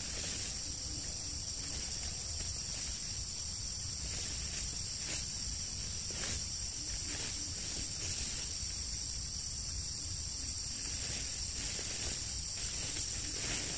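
Steady high-pitched insect drone, with soft, scattered rustles of leaves and undergrowth as someone moves through it.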